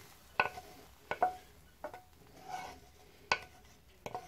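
A frying pan and wooden spatula scraping hot fried onion, garlic and chili pepper out into a stainless steel bowl of raw shredded potato. About six sharp knocks against the metal, each with a short ring, and a soft scrape about midway.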